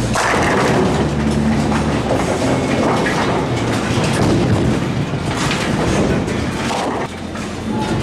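Bowling pins crashing as the ball strikes them, then a Brunswick GS-NXT pinsetter rattling as it sweeps the deck and sets a fresh rack, with background music underneath.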